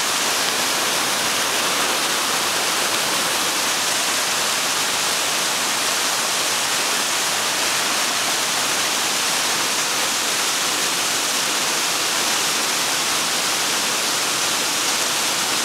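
Fast, high river water rushing steadily, a continuous even hiss of whitewater with no breaks.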